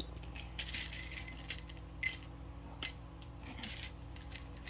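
Loose plastic beads clicking and rattling together as they are handled, in about five short clatters.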